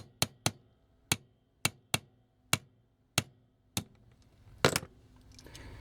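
A small hammer tapping on a pick to drive a pre-drilled rivet out of a toy car's wheel. About a dozen short, sharp taps come quickly at first and then further apart, ending with a double tap near the end.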